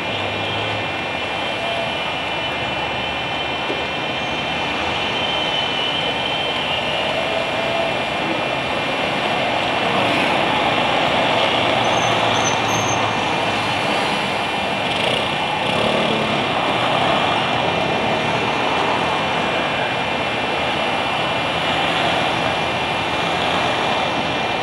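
Steady city traffic noise, with cars driving past on the street and the sound swelling a little about halfway through.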